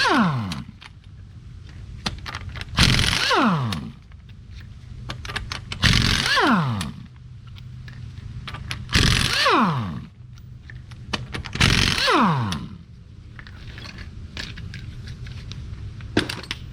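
Impact wrench with a 19 mm socket spinning off a wheel's lug nuts one after another: five short bursts about three seconds apart, each ending in a falling spin-down. Light clicks and rattles of the loose nuts and wheel follow near the end.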